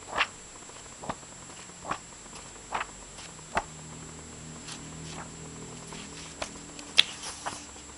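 Pages of a thick book being leafed through by hand. Each page gives a short papery flick or swish, about one a second, and the loudest comes about seven seconds in.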